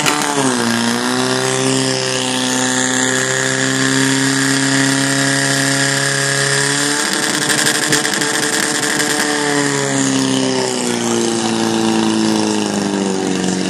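Portable fire pump's small petrol engine running hard at high revs, a steady, loud engine note whose pitch wavers a few times and drops a little near the end.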